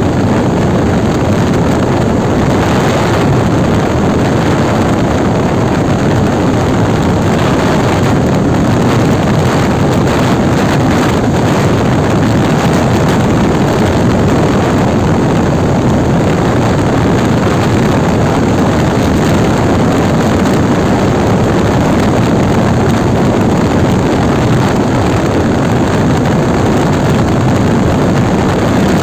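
Yamaha R15 V3's 155 cc single-cylinder engine running steadily in sixth gear at highway speed, around 100 to 113 km/h, mixed with loud wind rush on the microphone.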